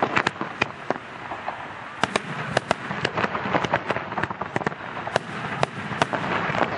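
Fireworks display: aerial shells launching and bursting, a rapid, irregular series of sharp bangs over a continuous noisy background.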